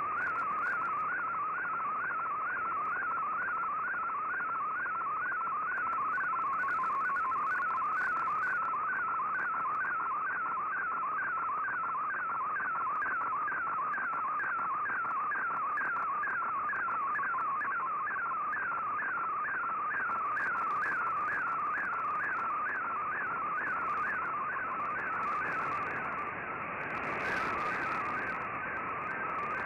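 Shortwave Radiogram picture transmission in Fldigi's MFSK image mode, heard through an Icom IC-R8600 receiver in AM. A single tone warbles up and down about twice a second over steady static hiss as the image is sent line by line.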